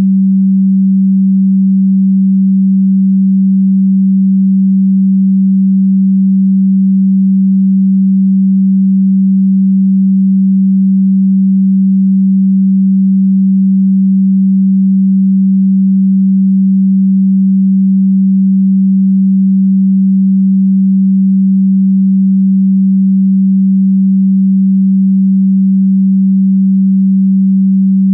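A single steady, low electronic pure tone, held unchanging at one pitch with no rhythm or variation.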